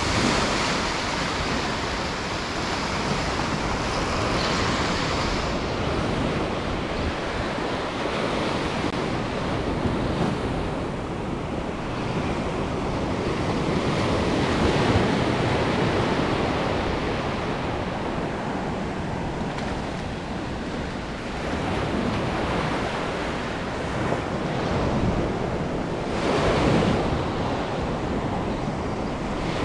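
Ocean surf washing on the shore with wind on the microphone, a steady noise that swells and ebbs, one wash louder near the end.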